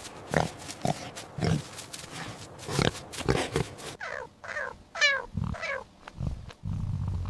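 Pig grunting in short, irregular grunts, then from about four seconds in a cat meowing several times, each meow falling in pitch, with low rumbling sounds between the meows.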